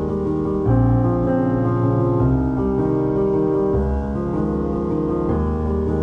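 Background music: soft piano playing sustained chords, the notes changing every second or so.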